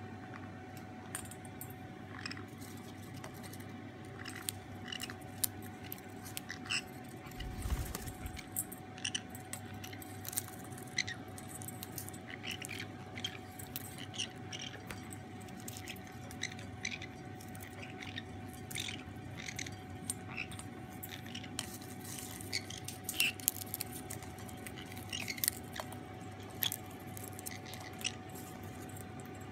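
A blue ring-necked parakeet's beak crunching popcorn and clicking against a stainless steel bowl: many small irregular crunches and metallic clinks, with a dull thump about eight seconds in.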